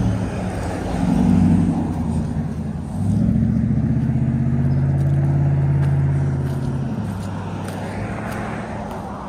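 Cars driving past with engine drone, one brief pass followed by a longer, louder one, then fading away.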